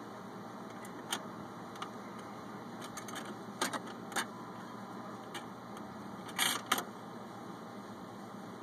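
Automatic record changer on an RCA Victor stereo record player cycling before play: a steady motor and turntable hum with scattered mechanical clicks and clunks as the tone arm swings over onto the 45. The loudest clatter comes about six and a half seconds in.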